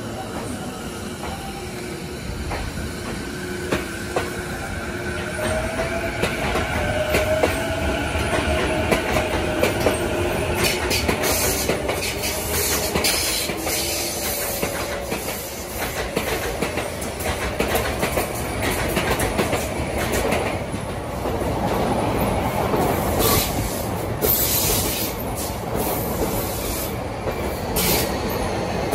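Sotetsu electric commuter trains at a station. One pulls away with its motors whining in a gliding pitch, then runs off over the rails. Near the end a second train passes close by, with high wheel squeal and rumbling rail noise.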